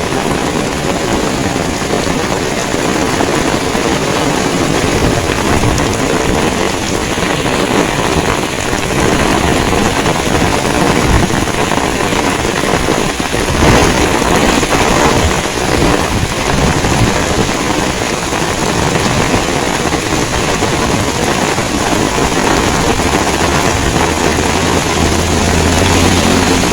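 Heavy rain pouring in strong wind, the gusts buffeting the microphone with a low rumble. Near the end a low engine hum comes in.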